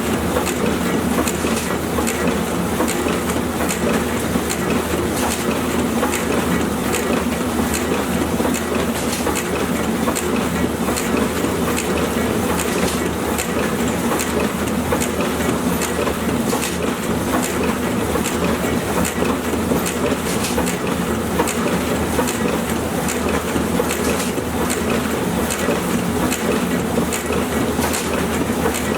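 Sticker printing press running, its ink rollers turning, giving a steady mechanical rumble with light clicks repeating at an even rhythm.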